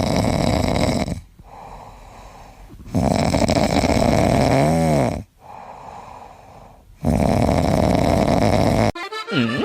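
Loud snoring: three long snores about four seconds apart, with quieter breathing between them.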